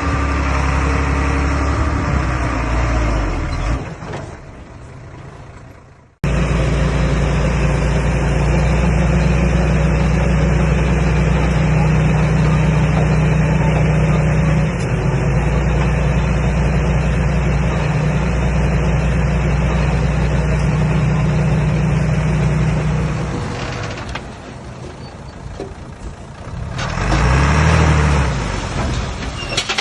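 Komatsu D21A bulldozer's diesel engine running steadily. The sound fades and cuts out a few seconds in, then comes back. Near the end it dips, then rises again with the engine pitch going up and back down.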